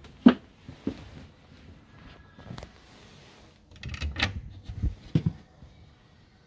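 Several short knocks and clunks in a small room, the sharpest about a third of a second in, with a cluster of them a little past the middle.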